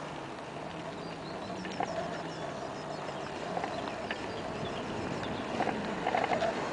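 Outdoor ambience: a steady rushing background with footsteps on a path and a few faint high bird chirps, growing slightly louder toward the end.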